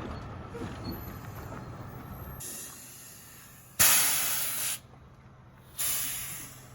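A low engine rumble drops away about a third of the way in, followed by three sharp bursts of hissing, the middle one loudest and about a second long.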